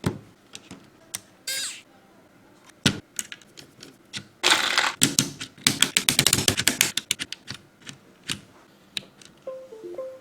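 Keys of a LeleLab Y2K 76 mechanical keyboard clicking. Scattered single keystrokes are followed, a bit past the middle, by a fast run of typing lasting about a second and a half. A few short musical notes come in near the end.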